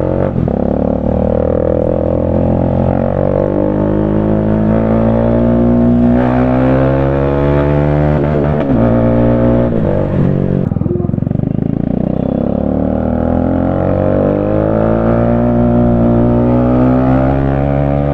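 Bajaj Dominar 400's single-cylinder engine running through an Akrapovic full-system exhaust with the catalytic converter removed, under way on the road. The exhaust note rises and falls with throttle and gear changes, with the biggest swings about eight to eleven seconds in.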